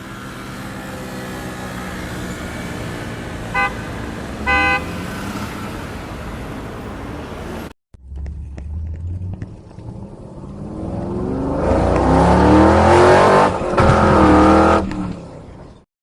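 Car sound effects played back: a car engine running steadily with two short horn honks about three and a half and four and a half seconds in. After a sudden cut, a car engine revs up to a loud run with its pitch rising and falling, then cuts off.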